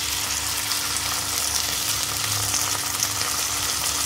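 Momos shallow-frying in a little oil in a kadai, with a steady sizzle.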